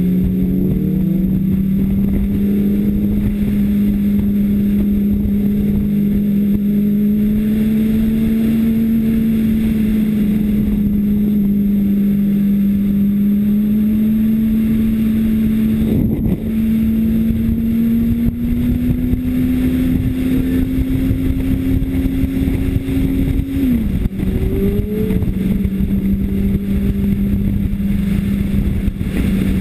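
2005 Honda CBR600RR inline-four sport bike engine running hard at a steady high pitch over wind rush, heard from on board. The pitch creeps up slowly and then drops suddenly about 24 seconds in, with a single knock about halfway through.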